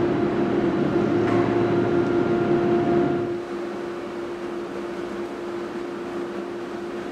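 Overhead crane moving a hanging car body shell: a steady electric machine hum with a constant tone. It is louder, with a low rough noise, for the first three seconds or so, then drops to a lighter hum.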